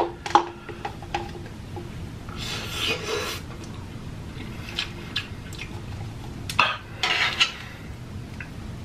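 Close-miked eating and table sounds: wooden chopsticks and a small cup clicking and tapping against a metal tray of noodles, a scatter of light knocks. Two short noisy bursts come about three seconds in and again near the end.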